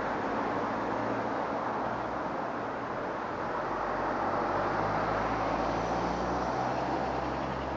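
Steady road traffic noise, a continuous hum and rush that grows slightly louder about halfway through.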